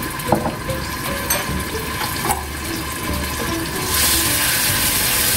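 Ground garlic frying in hot oil in a wok: a few light clinks of a spoon, then about four seconds in the sizzle jumps to a louder, brighter hiss as the garlic is sautéed.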